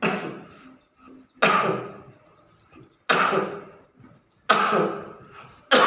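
A person coughing, five hard coughs about a second and a half apart, each dying away quickly.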